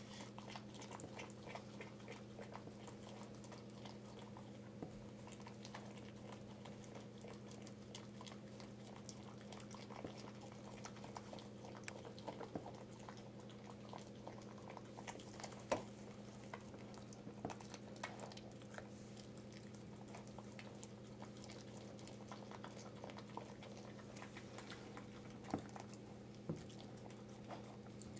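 Faint wet licking and small clicks as a Bichon Frise mother licks and nibbles her newborn puppy, which is not yet moving, with soft rustling of towels. A few sharper clicks come about halfway and near the end, over a steady low hum.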